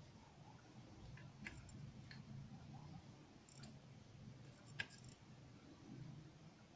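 Near silence with a faint low hum and a few small, sharp clicks and ticks from hand-soldering on a circuit board, the iron tip working the component pins; the sharpest click comes about five seconds in.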